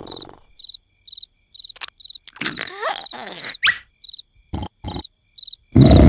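Cartoon cricket sound effect over an otherwise quiet scene, about two short high chirps a second. A few short sliding squeaks and a sharp rising whistle come in the middle. Near the end a loud snore breaks in suddenly.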